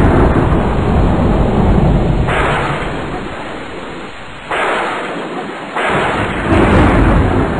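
Thunderstorm sound effect: steady rain with rolling thunder. A deep rumble dies away over the first few seconds, and another peal of thunder breaks in about six seconds in.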